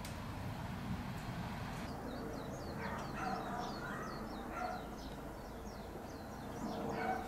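Small birds twittering: from about two seconds in, many short, high, falling chirps come in quick succession, with a few lower calls recurring about every second and a half. A steady low rumble of outdoor background noise runs underneath.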